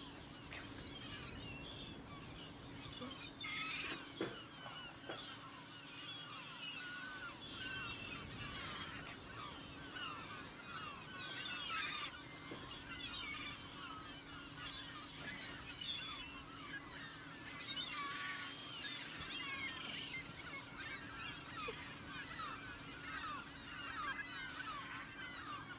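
A flock of seagulls crying, many overlapping calls without a break, over a steady low drone.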